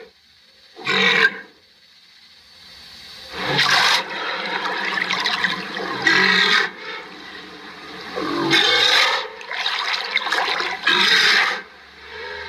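Rhinoceros calling: five loud, harsh calls every two to two and a half seconds, each lasting up to about a second. From about three seconds in, a rushing, breathy noise carries on between the calls.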